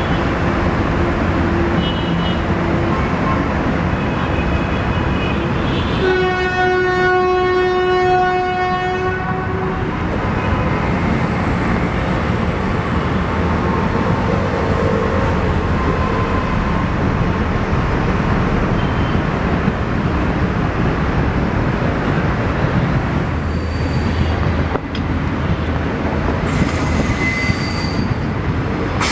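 Passenger train running past at close range, wheels rumbling steadily on the track. A single long, steady train horn blast sounds about six seconds in and lasts some three and a half seconds. A few thin, high wheel squeals come near the end.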